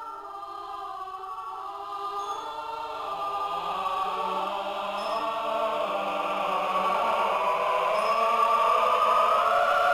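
Choral film music: voices singing long, held notes that swell steadily louder.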